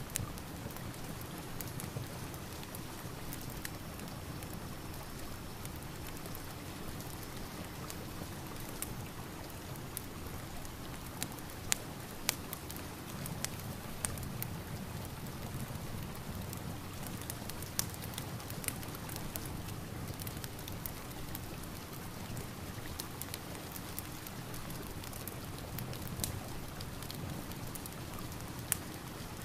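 Steady rain mixed with a crackling fireplace: an even hiss of rain with sharp pops and crackles scattered irregularly through it.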